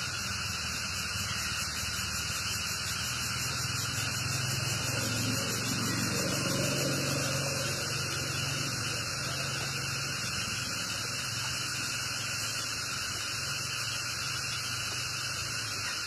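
Steady outdoor background noise: a continuous high hiss with a low hum underneath that swells slightly about five to eight seconds in.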